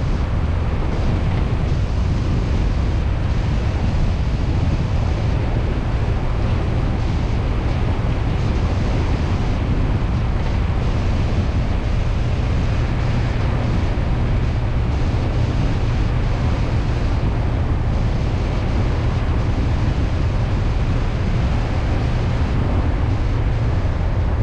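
Steady rumble of road and wind noise from a moving car, heaviest in the low end and unchanging throughout.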